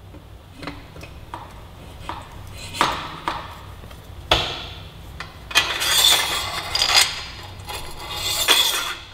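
Metal exhaust downpipe clinking and knocking against the engine and frame as it is slid up into place at the cylinder-head exhaust studs. There is a sharper knock about four seconds in, then two longer stretches of metal scraping.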